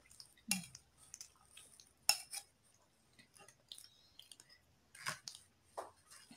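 Metal spoon clinking and scraping against a ceramic plate as food is scooped up: a handful of short, sharp clinks, the loudest about two seconds in.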